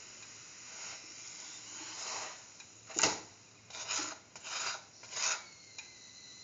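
A flatbread being turned and shifted around a hot metal pan, scraping against the pan in a series of short rasping strokes, the sharpest about three seconds in and three more quick ones after it, over a faint sizzle.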